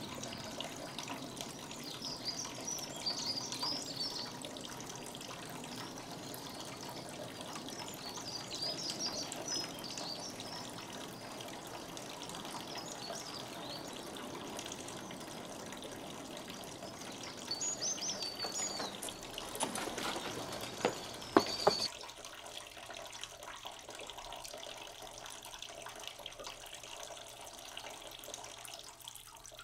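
Outdoor garden ambience: small songbirds chirping and twittering in short phrases over a steady background hiss, with a few sharp clicks about two-thirds of the way through. The birds then stop and only a quieter, steady hiss remains.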